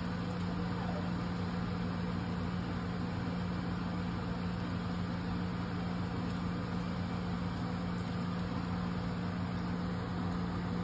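Steady low hum of a running appliance motor, holding one constant pitch over an even hiss.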